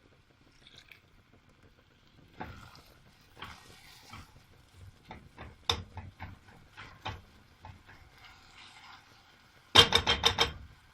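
Utensil sounds from a cooking pot: scattered knocks and scrapes of a spoon stirring the rice, then a quick run of about six loud metal taps near the end.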